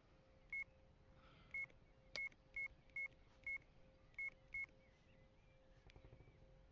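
Eight short electronic beeps, each at the same high pitch and irregularly spaced, over a faint steady hum.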